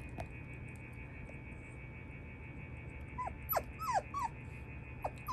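Shiba Inu puppy whimpering: a quick run of four short, high, falling cries about three seconds in, then one more near the end.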